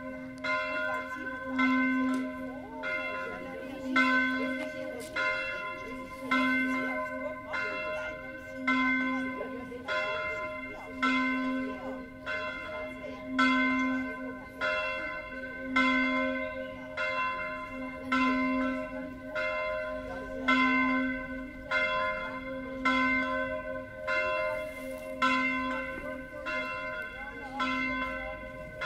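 Single church bell, bell V of a six-bell ring, tuned to C (Do4) and cast by Carlo Chiappani of Trento in 1906, swung alone in the Tyrolean style. Its clapper strikes about once a second, every other stroke louder, with the bell ringing on between strokes.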